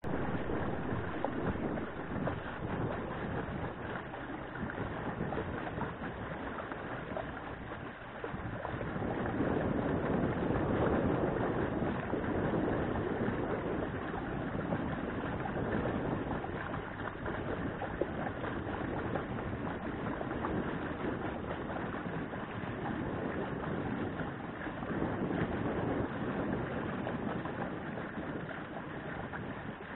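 Wind rushing over the microphone and water lapping at the hull of a solar electric boat underway, swelling louder for a few seconds about nine seconds in. No motor whine is heard: the electric drive runs quiet.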